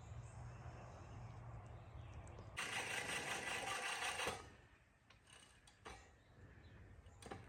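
Sun Joe electric lawn mower running with a steady low hum. About two and a half seconds in, a loud rushing noise lasts for about two seconds, then drops away, leaving a quieter stretch with a few clicks.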